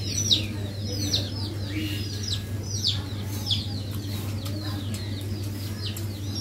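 Birds chirping: short high calls that fall in pitch, a few each second, over a steady low hum.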